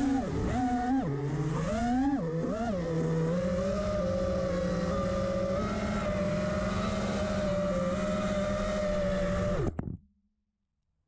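FPV quadcopter's electric motors and propellers whining, the pitch dipping and rising with the throttle over the first few seconds, then holding a steady hum. The sound cuts off abruptly near the end.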